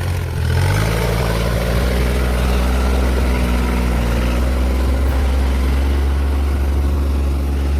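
A heavy vehicle's engine running steadily. It picks up revs about half a second in and then holds a constant note.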